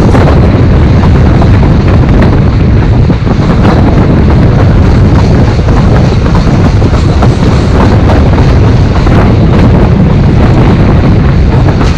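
Heavy wind buffeting the microphone of a camera held out of a moving passenger coach's window, over the running rumble of the train on the rails. It is loud, steady and gusty.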